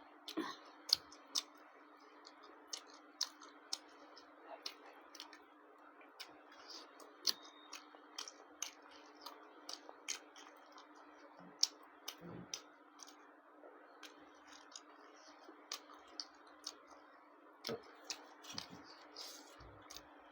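Close-miked eating sounds: a person chewing, with irregular wet mouth clicks and smacks, several in a second, over a steady faint hum.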